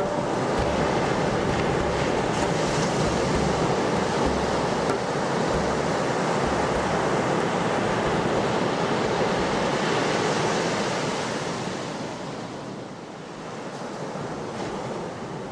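Ocean surf: a steady rushing wash of waves that dies down about two-thirds of the way through, swells briefly once more, and fades out.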